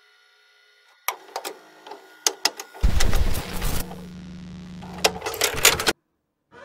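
Glitch and static sound effects: after about a second of silence, scattered crackles and clicks, then a burst of noise with a steady low electrical hum under it, more crackling, and a sudden cut-out near the end.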